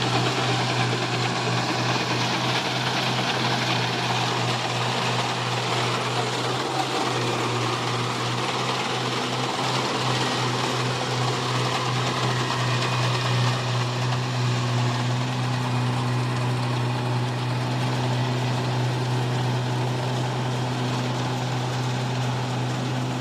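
Kubota rice combine harvester running steadily, with a strong, even low engine hum under a constant mechanical rush.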